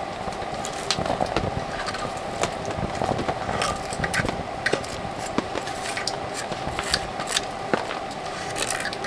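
Sawdust burning in the centre hole of a wooden log stove, crackling with many irregular sharp pops as sparks fly, while a wooden stick is poked and scraped through the sawdust.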